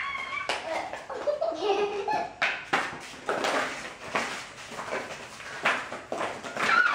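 Small children squealing and laughing while hard plastic toy pieces clatter and knock on a hard floor, with sharp knocks scattered throughout and high squeals at the start and near the end.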